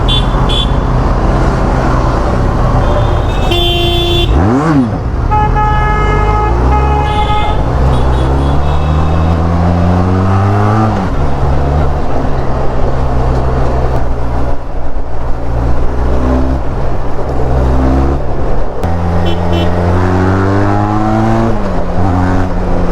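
Benelli TRK 502's parallel-twin engine pulling through traffic, its pitch rising twice as it accelerates. Vehicle horns honk several times a few seconds in.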